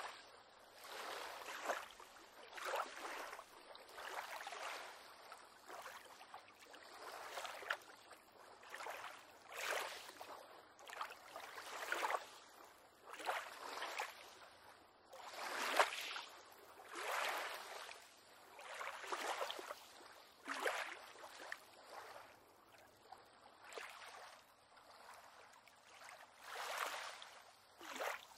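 Small waves lapping and splashing against a pier on calm water, a soft wash that swells and falls back roughly once every second or two.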